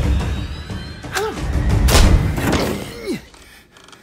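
Film score with heavy low rumble under a scuffle: several thuds with short vocal cries, one sliding down in pitch, before the music and action drop away about three seconds in.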